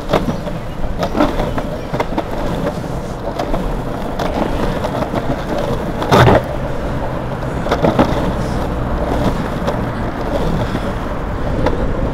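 Longboard wheels rolling on asphalt, a steady rumble broken by scattered clicks and knocks, with one louder, short thump about six seconds in.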